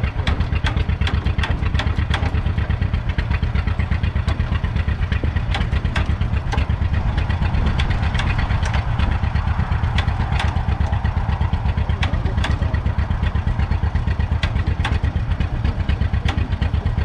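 1943 Fordson Model N tractor's 4.4-litre four-cylinder petrol/TVO engine idling steadily after being started, an even low beat with light clicking clatter over it.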